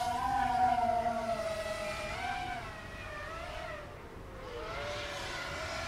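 Vortex 250 miniquad's freshly fitted brushless motors and propellers whining, several pitches rising and falling with the throttle; the sound dips in level a little past the middle.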